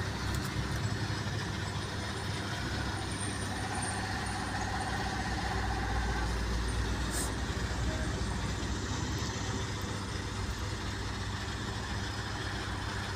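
Truck engine running with a steady low drone, heard from inside the cab.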